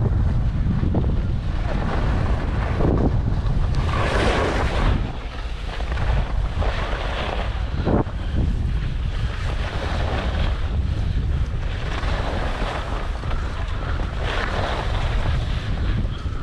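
Wind buffeting the microphone while skiing downhill, a steady low rumble. Over it, the hiss of skis scraping packed, groomed snow swells and fades with each turn, strongest about four seconds in and near the end.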